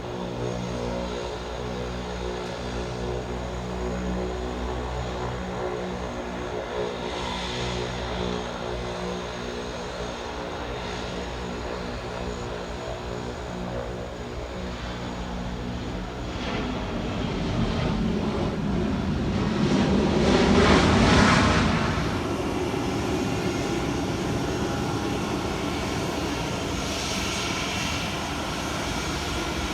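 Airplane engines running with a steady hum of tones, then growing louder to a rushing peak about 20 seconds in and easing off again as the aircraft passes.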